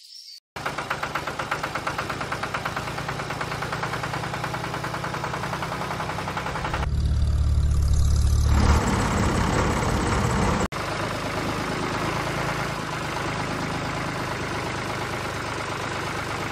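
Tractor engine running with a fast, steady knocking beat. It grows louder with a deep hum from about seven to nine seconds in, cuts out for an instant near eleven seconds, then runs on.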